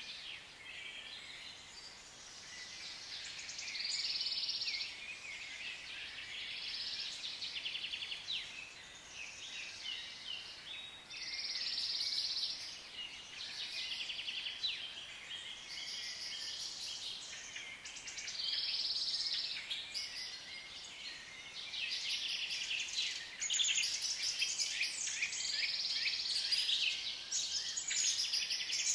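Tropical forest ambience: many overlapping high chirps and fast trills from birds and insects, swelling in bouts of a second or two.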